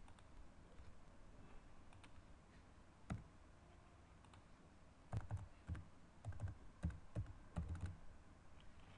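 Computer keyboard typing, faint: a single click about three seconds in, then a quick run of separate keystrokes entering a number, from about five seconds until shortly before the end.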